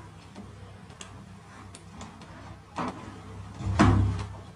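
Hands working rubber tubing and inner-tube strips onto a wooden slingshot fork: small clicks and rubbing, with two louder handling knocks about three and four seconds in.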